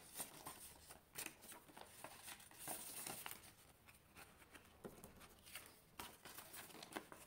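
Faint rustling and crinkling of paper and a plastic binder pocket as a paper tracker is handled and slid into the pocket, with scattered small ticks.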